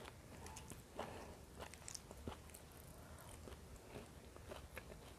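Faint chewing with scattered small clicks and smacks: a person eating fried fish by hand.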